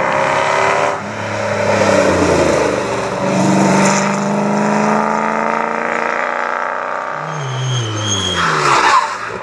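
Rally cars' engines revving hard and running at high revs as they speed along a dirt stage, with the pitch climbing and dropping several times. Near the end the pitch of a car falls away as it passes.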